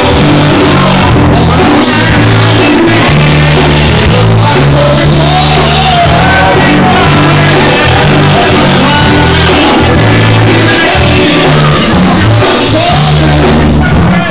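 Live rock band playing loudly, with a heavy bass line and a lead singer's voice.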